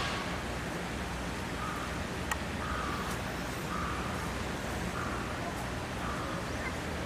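A crow cawing over and over, short calls about once a second, above steady outdoor background noise, with one sharp click a little over two seconds in.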